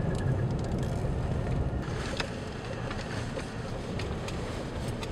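Car driving on a dirt road, heard from inside the cabin: a steady low rumble of tyres and engine, with scattered small clicks and knocks from the rough surface.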